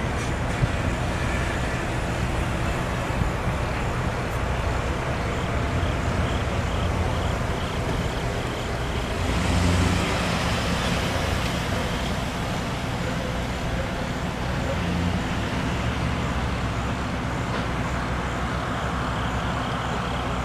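Armored police truck's engine running steadily close by, swelling briefly about ten seconds in as the vehicle is adjusted.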